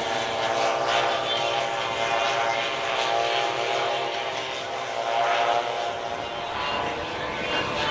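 Two Hangar 9 OV-10 Bronco models, each with a pair of 35cc two-stroke petrol engines, flying past together: a steady, many-toned engine drone with slight shifts in pitch.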